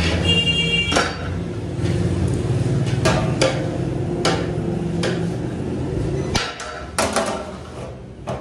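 A long metal ladle knocking and scraping against a large aluminium cooking pot as rice is ladled in: a series of sharp clanks, one with a brief metallic ring, over a steady low hum. Near the end the flat aluminium lid clanks onto the pot.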